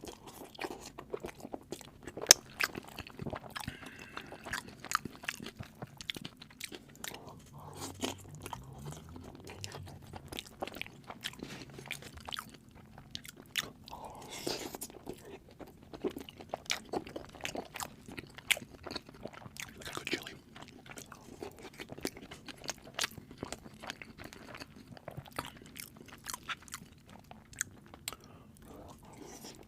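A person biting and chewing crunchy food, with many sharp, irregular crunches.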